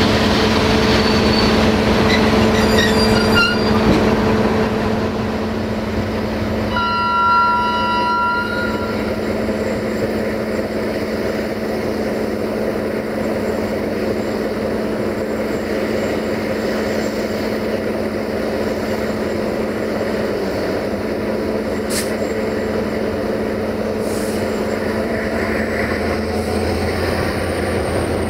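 Train running, heard from a carriage window: steady rumble and rattle of wheels on the track with a low engine drone. About seven seconds in, a short train horn blast of two notes sounds for about a second and a half.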